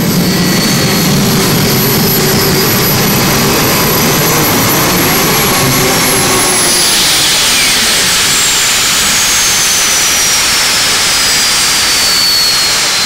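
Modified pulling tractor's engine running loud and steady at full power while it drags the weight-transfer sled, with a thin high whine over it. About six seconds in, the whine starts falling steadily in pitch as the engine winds down.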